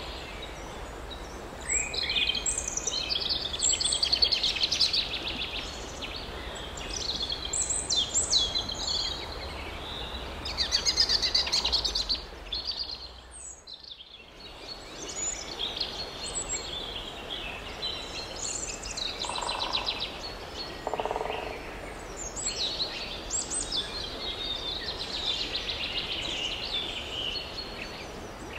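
Several songbirds singing in quick, chirping phrases over a steady low outdoor background rumble. The sound briefly drops away about halfway through.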